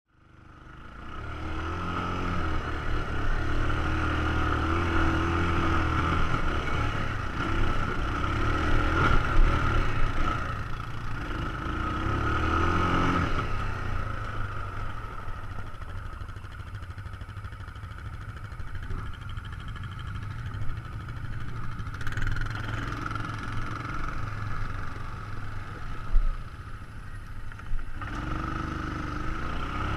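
An ATV engine running as it is ridden, revving up and down, louder for the first half and easing off at about thirteen seconds in. A sharp thump comes near the end.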